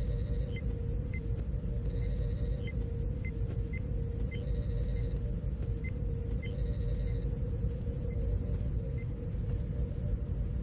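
Repeating electronic beeps: a group of high tones recurs about every two seconds, with short single pips between, over a steady mid-pitched hum and a low rumble.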